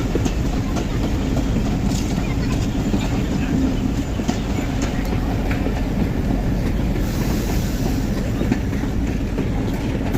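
Broad-gauge passenger train running along the track: a steady rumble with wheels clattering over the rail joints.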